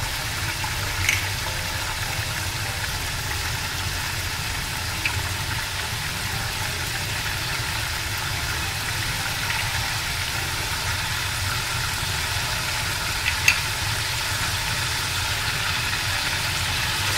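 Chicken pieces sizzling steadily in hot oil in a pot, over a low steady hum. There are brief clicks about a second in and again near the end.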